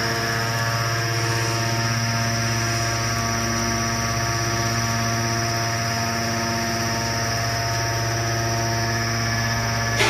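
Hydraulic power unit of an Enerpat scrap metal baler running: a steady mechanical hum, with a strong low tone and several fainter, higher steady tones.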